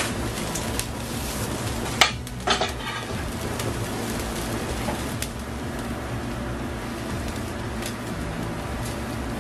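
Squid-ink paella broth boiling in a steel paella pan over a gas burner, a steady bubbling, with a sharp clatter of kitchenware about two seconds in and a couple of smaller knocks just after.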